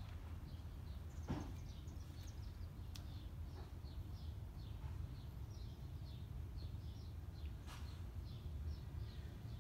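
Small birds chirping over and over in short, quick, downward-sliding notes, over a steady low outdoor rumble, with a few sharp clicks.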